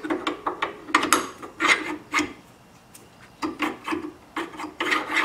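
Metal piston being twisted and pushed into a freshly honed cast iron cylinder bore, rubbing and scraping in short, irregular strokes. It is still a tight fit.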